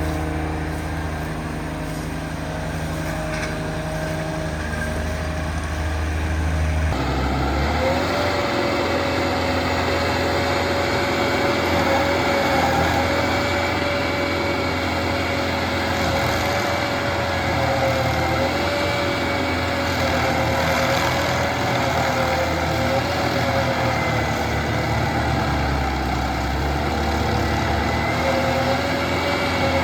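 A large engine running steadily with a low hum. About seven seconds in, the sound changes suddenly and a wavering high whine joins it.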